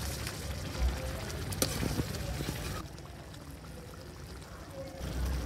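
Metal ladle stirring thick potato curry in a steel kadhai: wet slopping of the gravy, with a few clicks of the ladle against the pan in the first two seconds.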